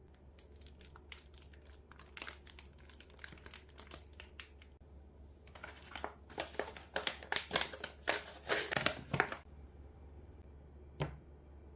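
Packaging of a diamond painting kit crinkling as it is handled and opened, in scattered rustles at first and then louder, denser crinkling for about four seconds. A single sharp tap follows near the end.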